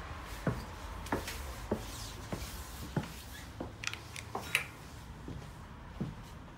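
Footsteps climbing a double-decker bus's staircase, about one and a half steps a second, over the steady low rumble of the Scania N230UD's engine, with a couple of sharper clicks partway up.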